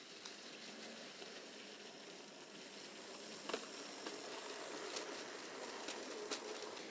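Hornby model train, a small locomotive hauling freight wagons, running on model track: a steady whirring rumble from its electric motor and wheels that grows a little louder as it comes past, with a few sharp clicks in the second half.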